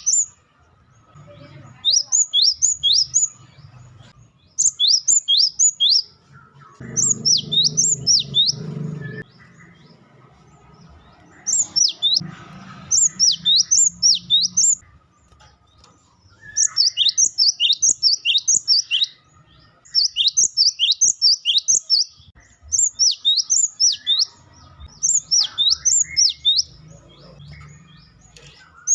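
Cinereous tit (gelatik batu) calling in quick phrases of three to six sharp, sweeping high chirps, each phrase about a second long and repeated every two to three seconds, over a faint low rumble.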